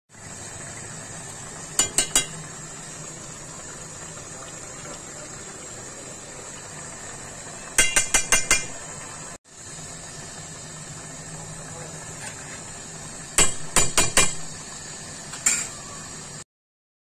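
Metal ladle knocking and clinking against a metal cooking pot while a meat curry is stirred, in four short runs of sharp knocks, over a steady hiss.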